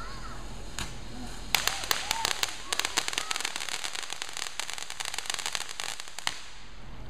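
Ground fountain firework crackling: a dense run of rapid sharp pops starts about a second and a half in and stops abruptly about six seconds in, with one lone pop just before the run.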